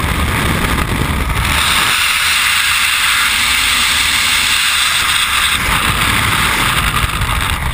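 Loud, steady wind rushing over a helmet-mounted camera's microphone in skydiving freefall. It turns hissier about a second and a half in and eases back again a few seconds later.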